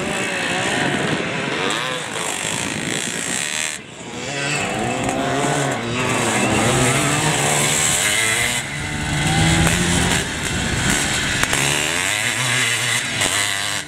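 Classic off-road motorcycle engines racing on a dirt track, revving up and dropping back again and again as the riders work the throttle. The sound dips briefly about four seconds in.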